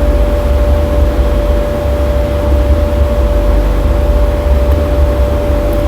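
Steady, loud background noise with a low hum and a thin steady tone, unchanging throughout.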